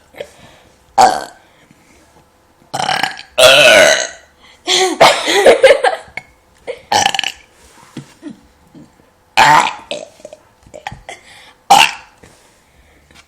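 A string of deliberate, loud human burps in a burping contest: several short ones, plus long drawn-out burps with a wavering pitch between about three and six seconds in.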